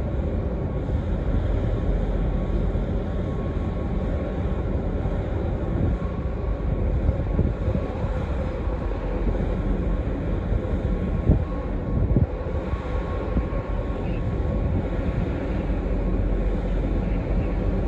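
Ro-ro passenger ferry Ben-my-Chree manoeuvring close by, its machinery giving a steady low rumble with a faint steady hum over it. Two brief thumps come about eleven and twelve seconds in.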